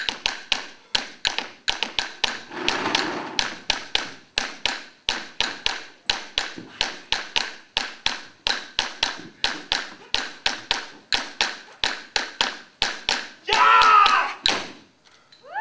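A steady rhythm of sharp slaps and taps, about three to four a second, each with a short echo: a dancer's body percussion, hands slapping the body and bare feet striking a wooden floor. Near the end, a brief loud shout cuts in.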